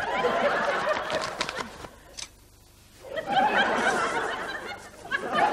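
Audience laughter in two waves, with a brief lull about two seconds in.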